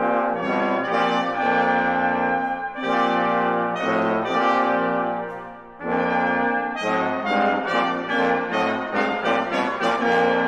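Brass quintet of two trumpets, French horn, trombone and bass trombone playing long held chords. The chords break off about six seconds in, followed by a passage of quicker, shorter notes.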